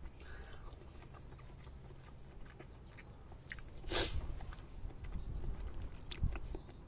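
Quiet chewing of a mouthful of salad, with one short sharp noise about four seconds in. Near the end come a few small clicks of wooden chopsticks picking food from a plastic salad bowl.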